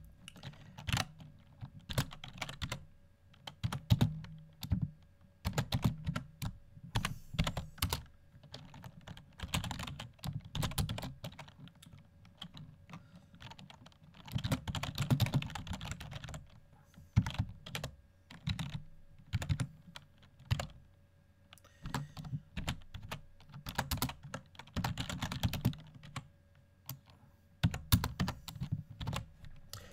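Typing on a computer keyboard: bursts of rapid keystrokes broken by short pauses.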